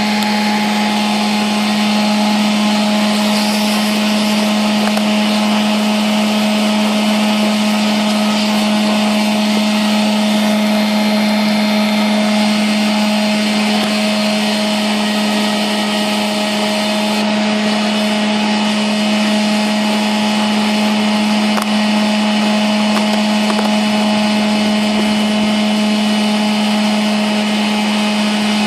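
A small electric motor running steadily at a constant pitch, a loud hum with a whine above it.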